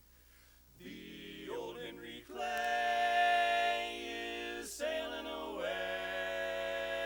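Male barbershop quartet singing a cappella in close four-part harmony. The singing comes in after a short pause about a second in and moves through a few long held chords.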